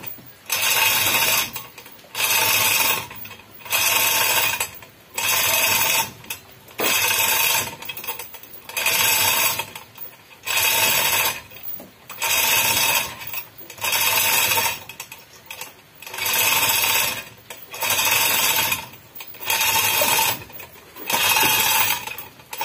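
Manual chain hoist rattling in regular bursts, about one every second and a half, as its chain is hauled hand over hand to lower an engine.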